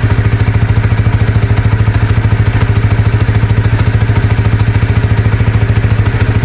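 Flash150X motorcycle engine idling steadily with an open throttle body (no airbox), an even, rapid pulsing note.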